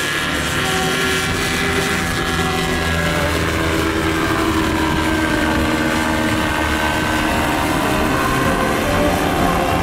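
Paramotor engine and propeller running steadily, its pitch sinking slightly a few seconds in.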